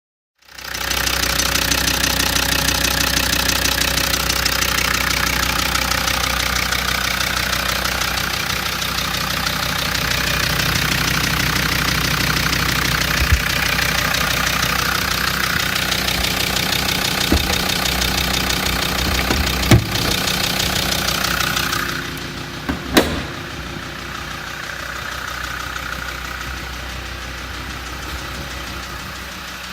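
Land Rover Td5 five-cylinder turbodiesel running steadily, with a clacking, rattling noise from the engine. A few sharper knocks stand out, and the sound gets quieter about two-thirds of the way through.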